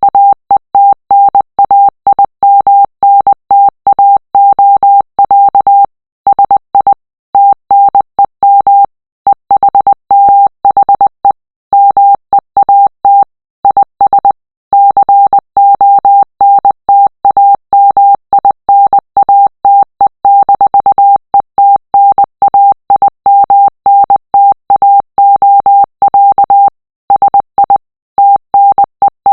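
Morse code message sent as a single steady-pitched beep, keyed on and off in short dots and longer dashes with brief gaps between them.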